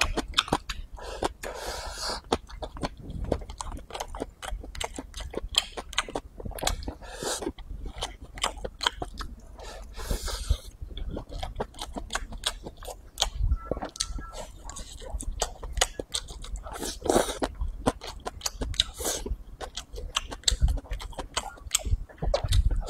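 A person chewing mouthfuls of cooked leafy greens and rice, a dense run of small wet clicks with no regular rhythm.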